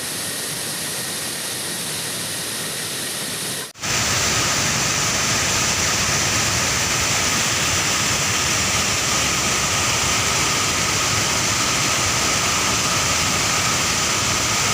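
Waterfall's loud, steady rush of falling water. Just under four seconds in it breaks off and resumes a little louder.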